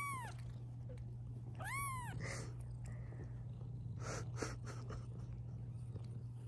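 Newborn kitten mewing twice, about two seconds apart: each a short, high cry that rises and then falls in pitch.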